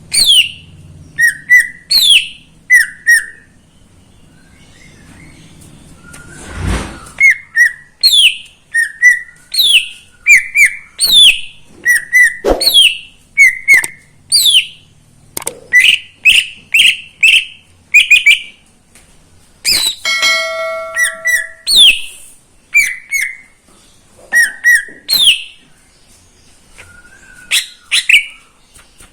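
Cucak ijo (greater green leafbird) singing a rapid string of short, sweeping whistled notes in bursts, with a pause of a few seconds early on. A brief steady tone with several pitches sounds about twenty seconds in.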